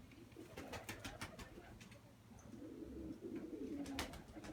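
Domestic pigeons cooing, with a cluster of sharp clicks about a second in and another couple of clicks near the end.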